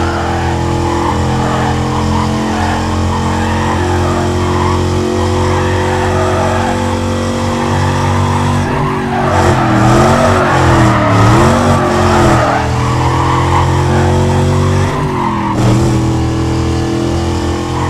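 Traxxas XO-1 radio-controlled car's brushless electric motor whining, with tyre noise on the ground, heard from a camera mounted on the car. The motor holds a steady pitch, then about nine seconds in it dips and rises several times as the car slows and speeds up, before settling again.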